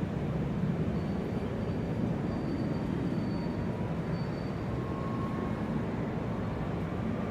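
Large-airport ambience: a steady, even rumble of engine and hall noise. A faint high thin tone runs through the middle and a fainter lower one near the end.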